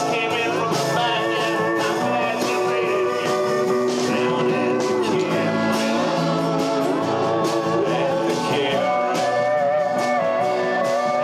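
Live blues-rock band playing: electric bass and a Nord Electro 3 keyboard over drums, with regular cymbal hits.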